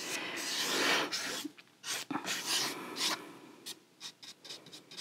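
Paintbrush bristles dragging acrylic paint across a stretched canvas. One longer scratchy stroke comes first, then a run of short strokes.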